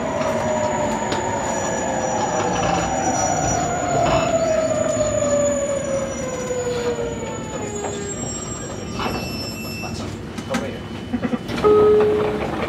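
The Hitachi IGBT VVVF inverter of a JR Kyushu 817 series 3000 electric train whines and falls steadily in pitch as the train brakes and slows. The whine dies away about seven seconds in. A few clicks follow, then a short, loud tone near the end.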